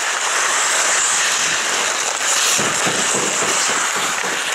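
Ice hockey skates scraping and carving across rink ice in a steady hiss, with a stretch of low irregular rumbling from about two and a half to four seconds in.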